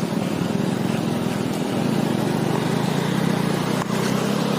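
Small motorcycle engine running steadily with a fast, even pulse, along with a haze of wind and road noise. There is a brief dip about four seconds in.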